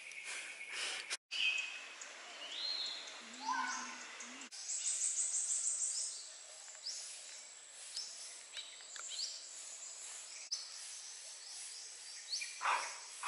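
Outdoor ambience of birds calling with short whistled notes and chirps, and a fast high rattling trill around the middle, over a faint steady hiss. The sound breaks off abruptly a few times and resumes.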